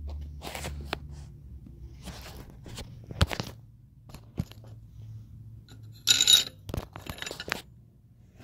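Tools and metal parts being handled on a workbench: scattered clicks and knocks, with a short, loud metallic jangle and scrape about six seconds in.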